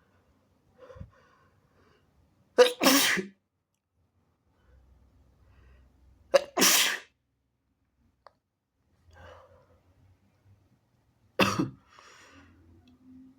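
A person sneezing three times, each sneeze a sudden loud burst a few seconds after the last, with faint breathing in between.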